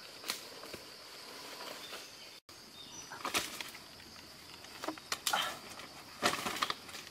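Leaves and undergrowth rustling under footsteps, then a few short rustling, scraping bursts as a green banana-tree trunk is handled on a bamboo-slat platform, with a steady high insect drone behind.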